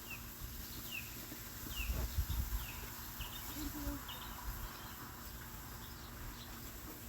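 A bird calling in a series of short, high, downward-sliding whistled chirps, about one a second, over a low wind rumble that swells about two seconds in.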